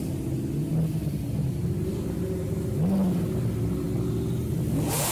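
McLaren 570S twin-turbo V8 running at low revs as the car pulls away slowly. The pitch dips and rises a few times with light throttle, and there is a quick rev blip near the end.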